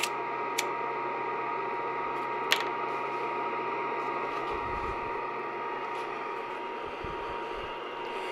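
A fan or blower running steadily with a thin whine, while a lighter is struck three times, at the start, just after, and about two and a half seconds in, to light a wad of paper.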